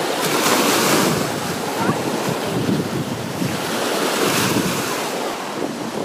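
Small Black Sea waves washing up and foaming on the shore, the surf swelling about a second in and again around four seconds, with wind buffeting the microphone.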